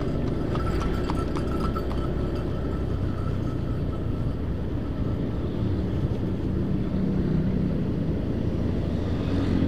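Motorcycle riding at steady speed: a continuous engine drone with road and wind noise. In the first two seconds a few faint clops come from the hooves of a horse-drawn cart as it is overtaken.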